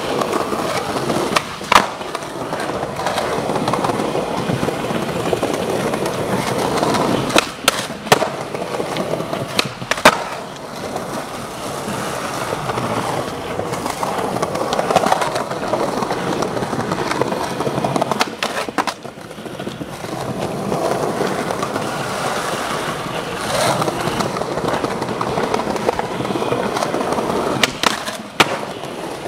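Skateboard wheels rolling over smooth concrete pavement in a continuous rough rumble. A few sharp clacks of the board come now and then: one about two seconds in, several around the middle, and a pair near the end.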